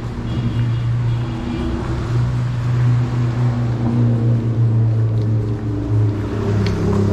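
A motor vehicle engine running with a steady low drone over street ambience. A couple of sharp clicks come near the end.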